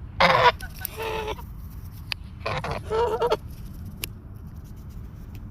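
Goose honking: two pairs of harsh, loud honks, one in the first second and another about two and a half seconds in.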